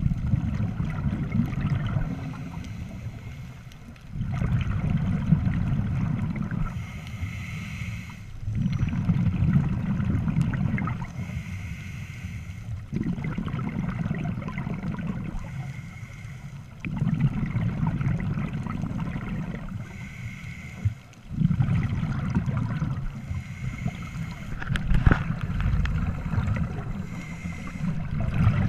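Scuba diver breathing through a regulator underwater: bursts of exhaled bubbles gurgling every four seconds or so, with quieter pauses between breaths.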